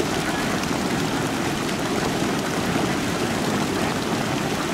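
Steady din from a dense flock of thousands of domestic laying ducks crowded together, their many calls and movements blending into one continuous noise with no single call standing out.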